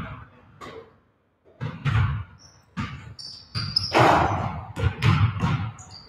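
Several basketballs bouncing on a gym floor in an uneven, overlapping rhythm of thuds that is busiest in the second half. A few short, high sneaker squeaks come about halfway through.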